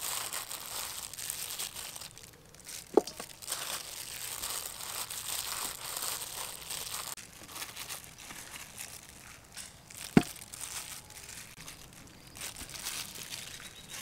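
Disposable plastic glove crinkling and flour rustling as a gloved hand dredges raw chicken wings in flour. Two sharp knocks stand out, about three seconds in and about ten seconds in.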